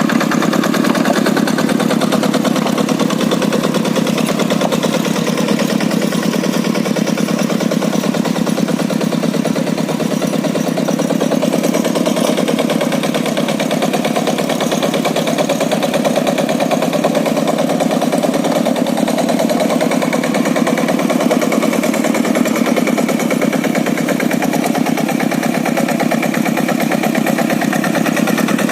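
Kubota single-cylinder diesel engine of a Quick G100 two-wheel hand tractor running steadily, with a fast, even chugging.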